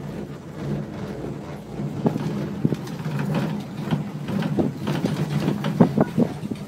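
Cable car gondola riding along its cable: a steady low hum with a run of rattles and clacks that grows busier and louder from about two seconds in.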